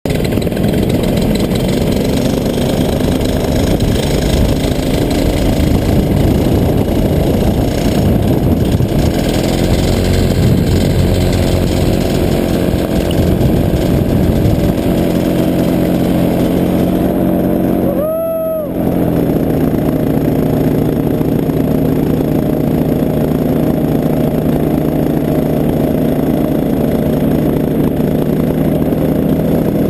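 Paramotor's engine and propeller running steadily in flight, heard from the pilot's harness. A little past halfway the engine sound briefly dips, with a short swooping tone.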